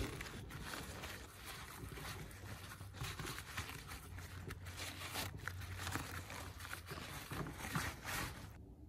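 Rubber-gloved hands scrunching and crumpling fabric, giving a stream of irregular soft crackles and rustles over a low hum.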